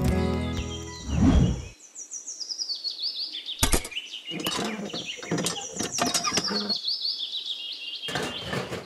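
Background music stops about a second and a half in after a short swelling whoosh. Repeated high, stepwise-falling bird chirps follow, with several sharp clicks and taps among them.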